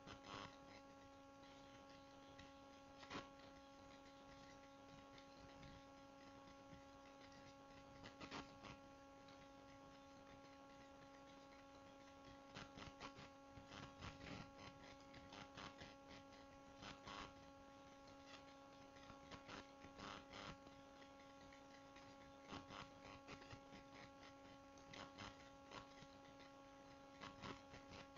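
Near silence: a faint steady electrical hum on the recording, with soft scattered clicks of a computer mouse, sparse at first and then in quick clusters.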